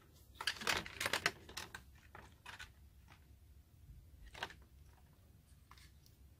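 Handling noise from a plastic model locomotive being turned over in the hands: a quick run of small clicks and rustles from about half a second to a second and a half in, then a few scattered single taps.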